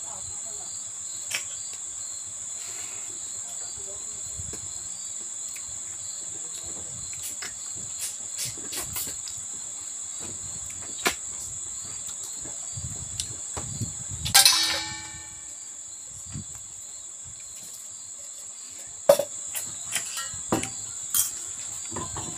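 Steady, high-pitched chirring of a cricket chorus, with close eating sounds over it: chewing and smacking, scattered small clicks, and one loud ringing clink of a spoon or hand against the metal bowl about two-thirds of the way through.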